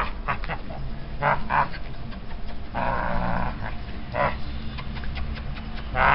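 Young Border Collie puppy making play growls and short yelps in several brief bursts while tussling, the longest about three seconds in.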